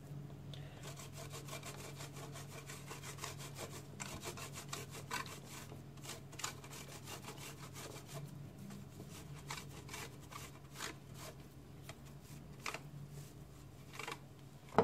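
Chilled dough rubbed down a metal box grater in quick repeated strokes, a rasping scrape with each pass, the strokes coming more sparsely after the first few seconds.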